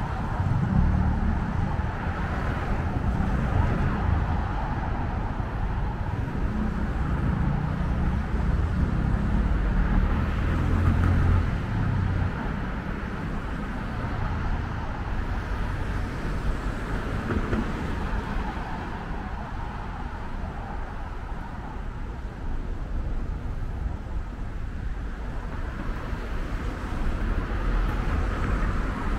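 Road traffic on a busy city street: cars and other vehicles passing in a steady rumble, heavier for the first twelve seconds or so, easing off, then building again near the end.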